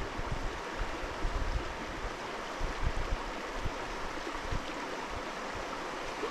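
A mountain stream, the South Fork of the Williams Fork, rushing steadily, with a few soft low thumps underneath.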